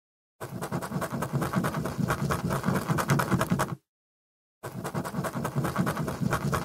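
Pencil scribbling rapidly on paper, a sketching sound effect, in two bursts of about three and a half seconds each, separated by a short dead silence.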